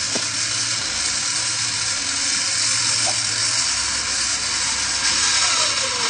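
Electric recovery winch on a Toyota Land Cruiser's front bumper running steadily under load, a continuous whirring hiss over a low engine hum, as it pulls the vehicle out of the mud.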